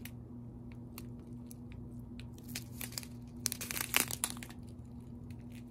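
Small plastic bags of square resin diamond-painting drills being handled: scattered crinkles of the plastic, with a louder cluster of crinkling about four seconds in.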